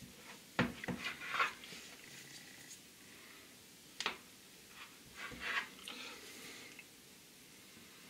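Faint scattered taps and soft scrapes of a kitchen knife pressing down through a disc of floured noodle dough and meeting the counter, with one sharper click about four seconds in.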